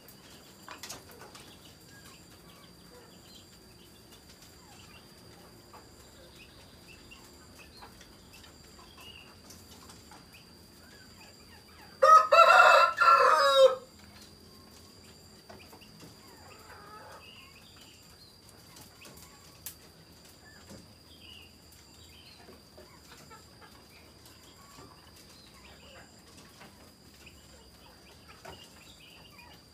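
A rooster crowing once midway, one loud call lasting under two seconds, over quiet rural background with a faint steady high-pitched tone.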